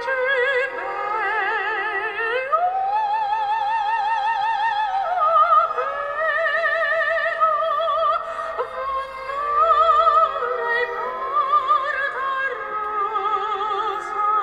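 Female operatic singing, long held notes with wide vibrato that glide up into each new pitch, played from an iPhone's speaker through a 3D-printed horn amplifier.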